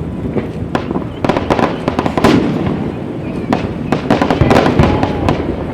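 Fireworks display: shells bursting with repeated sharp bangs and crackling, coming in quick clusters about a second in and again in the second half, over a steady low rumble.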